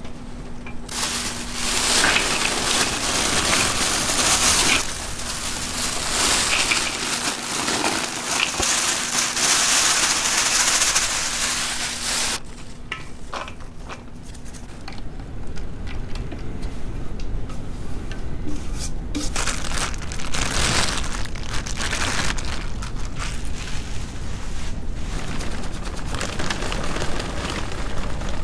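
Ground meat being handled and mixed in a large stainless steel bowl: a steady wet crackling noise, louder for the first half and softer after, with a faint low hum at times.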